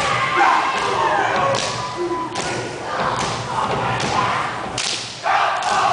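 Male group performing a haka: sharp body slaps and foot stamps about once a second, with shouted chanting in unison between them.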